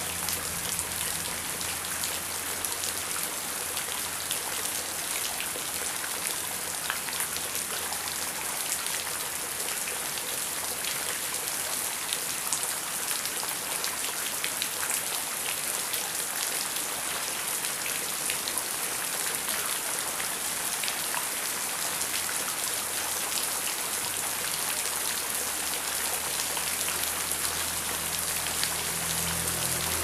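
Heavy rain pouring steadily onto a hard surface, a dense hiss full of individual drop splashes. A low rumble fades out in the first seconds and builds up again in the last few seconds.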